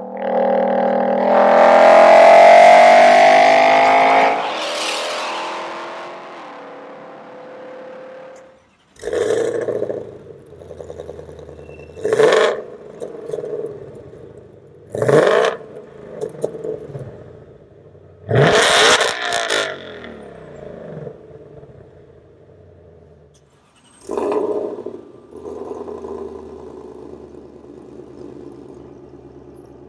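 2020 Ford Mustang Shelby GT500's supercharged 5.2-litre V8 accelerating hard, its note rising for a few seconds and then fading away. It then idles with its exhaust in Sport mode and is blipped about five times, each rev climbing sharply and falling straight back to a burbling idle.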